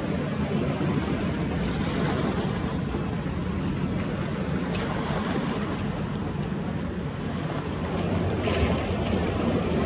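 Steady wind buffeting the microphone over the wash of sea waves, a low, even rushing noise.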